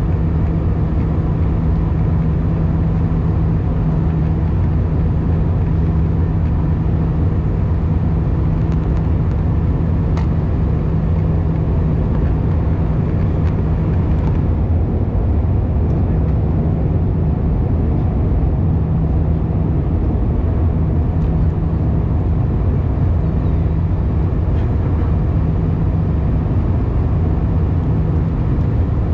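Airbus A319 cabin noise in cruise flight: a steady jet engine and airflow drone, with a low hum that turns patchy about halfway through.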